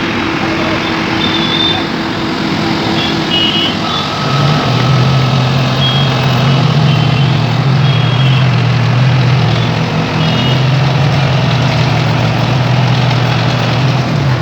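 Excavator-mounted Vermeer VMT645 hydraulic vibratory hammer working a steel sheet pile, a loud steady machine drone. A deeper steady hum sets in about four seconds in and holds to the end.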